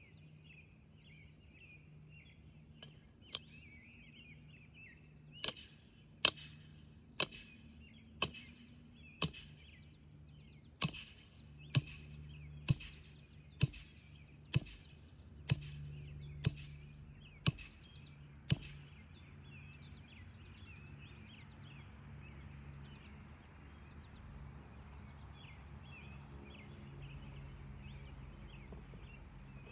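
A hammer striking a steel ground sleeve to drive it into the ground: fourteen sharp metallic strikes about once a second, with a brief pause after the fifth. After the strikes, birds chirp faintly.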